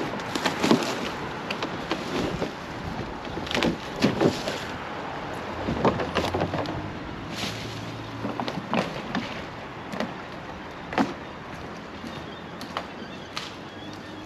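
A canoe being paddled through water: irregular paddle splashes and wooden knocks against the hull, a sharp one every second or so.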